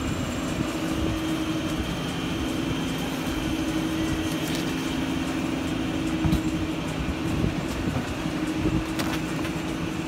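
Steady mechanical rumble with a low, even hum, and a few light knocks about six to nine seconds in.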